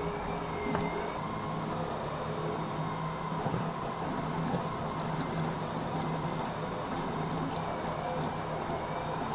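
HE3D delta 3D printer printing: its stepper motors whine in shifting tones as the print head moves, over the steady rush of the cooling fan.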